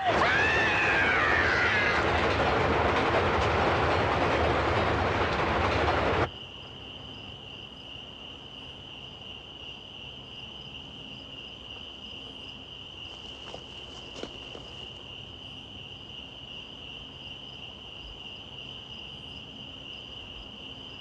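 A vehicle rushes past loudly, with a dense whoosh and a few sweeping tones, and cuts off sharply about six seconds in. A steady high chorus of crickets follows.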